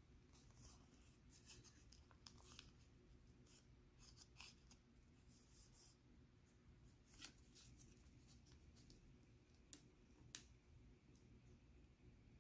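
Faint rustling and creasing of a sheet of origami paper being folded by hand, with a few sharper paper crackles over a low room hum.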